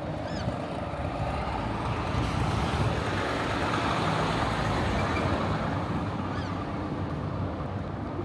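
A vehicle passing by on a city street, its noise swelling to a peak about four seconds in and then fading.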